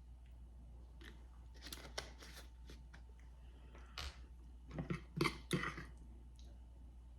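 Close-up crunching and tearing as crispy fried chicken is bitten and pulled apart, in two short bursts: one about a second in and a louder one about five seconds in.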